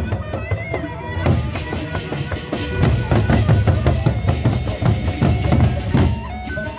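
Gendang beleq ensemble: large Sasak barrel drums beaten in fast, dense drumming with deep thuds, and cymbals clashing in from about a second in.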